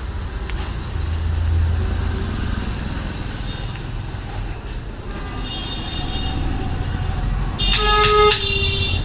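Steady road traffic rumble, with a vehicle horn sounding briefly about eight seconds in.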